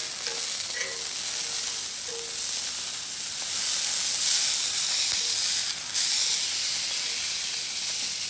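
Kingfish steak sizzling in olive oil on a ridged grill plate, a steady hiss that swells louder about halfway through, with a short tap about six seconds in.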